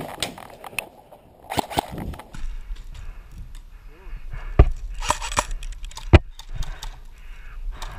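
Handling noise and wind rumble on a body-worn action camera during an airsoft game, with scattered clicks and knocks. Two loud, sharp snaps come about four and a half and six seconds in.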